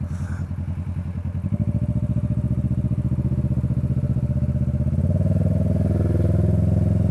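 Kawasaki motorcycle engine running at low road speed with a steady pulsing beat, growing louder about a second and a half in and again about five seconds in as the bike pulls forward.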